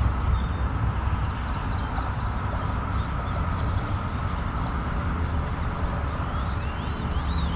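Steady low outdoor rumble with an even hiss above it, with no single event standing out. Near the end a bird calls a few times in short rising-and-falling chirps, about two a second.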